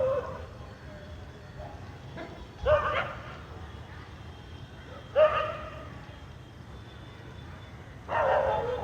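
Street dog barking: a drawn-out call ends just at the start, then three separate barks about two and a half seconds apart, the last one longer and running on. Under them is a faint, steady hum of distant city ambience.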